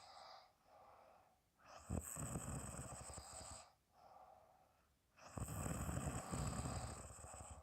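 A woman snoring in her sleep: two long snores, the first about two seconds in and the second about five and a half seconds in, each lasting under two seconds, with softer breaths out between them.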